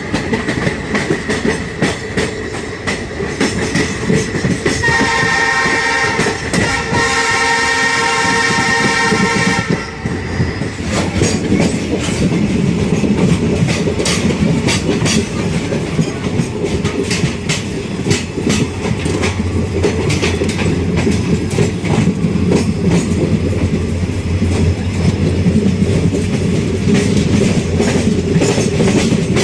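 Passenger train running on the rails, its wheels clattering over the track joints with a steady rumble; about five seconds in, a train horn sounds for about five seconds.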